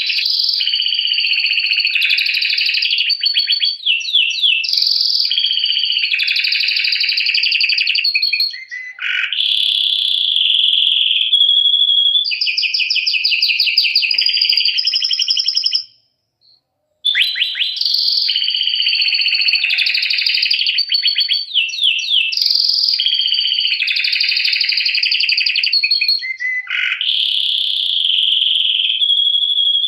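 Domestic canary singing a long, continuous song of fast rolling trills and warbles, breaking off for about a second midway before resuming.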